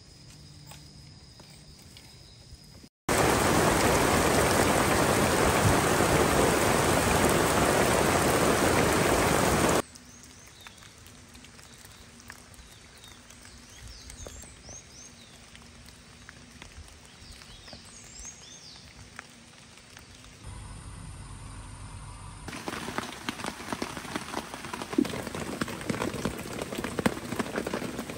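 Rain in several cut-together clips: a few seconds of loud, steady heavy rain, then a quiet stretch with a few short bird chirps, then drops pattering with sharp ticks near the end.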